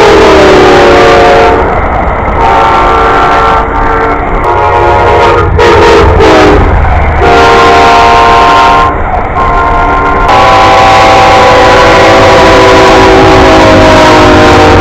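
Diesel locomotive multi-chime air horns sounding in a series of loud blasts, two of them sliding down in pitch as the train goes by, then one long unbroken blast from about ten seconds in, over the low rumble of the passing train.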